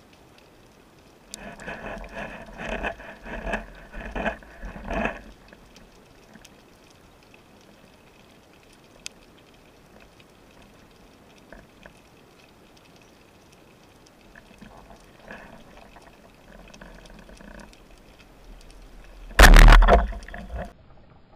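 Underwater sounds of a spearfishing dive: a few seconds of knocking and rustling movement noise, fainter bouts later, then one loud, sudden noise about a second long near the end.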